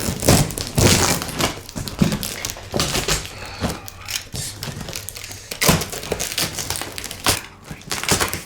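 A box being opened by hand: irregular crinkling, tearing and knocks as the packaging is pulled apart and handled.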